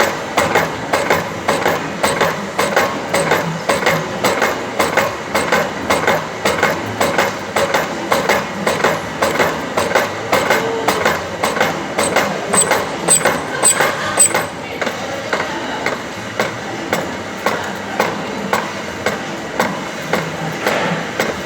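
Slotting machine's ram stroking up and down as it cuts a keyway into a dynamo pulley, giving a steady rhythmic knocking of a few strokes a second. The knocking grows a little quieter about two-thirds of the way in.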